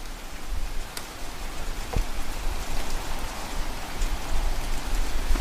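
Heavy rain falling steadily: an even hiss of rain on surfaces, with a few faint raindrop ticks.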